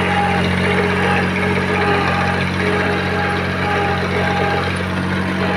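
Diesel engine of a homemade Thai farm truck (E-taen) fitted with a hydraulic log loader, running steadily at idle, with a higher whine that comes and goes several times.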